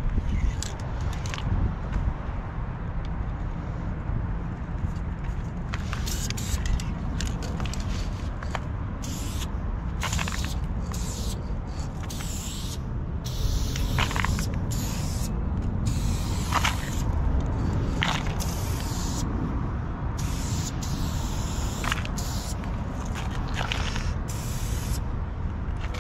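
Aerosol spray-paint can hissing in repeated bursts, each lasting up to a second or so, over a constant low rumble.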